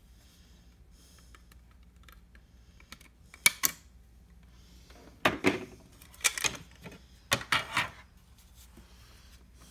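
Plastic clicks and clatter from a 2002 Ford E-350's overhead compass/thermometer console being handled and opened up: one sharp click about three and a half seconds in, then three short bursts of clattering about a second apart.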